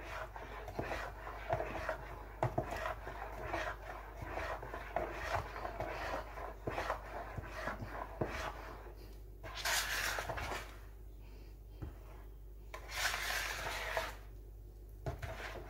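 Metal fork stirring and scraping a thick batter in a bowl: a quick run of small scrapes and taps, then two longer hissy stretches of scraping about ten and thirteen seconds in.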